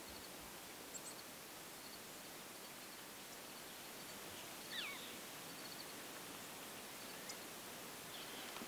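Quiet outdoor ambience: a steady faint hiss with small groups of soft high chirps recurring. One falling animal call comes just before halfway through.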